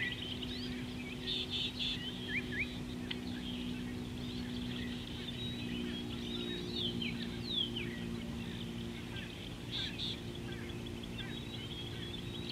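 Wild birds calling in a busy chorus of short chirps and quick whistled sweeps, with a denser, harsher chatter about a second in and again later. A low steady hum lies underneath.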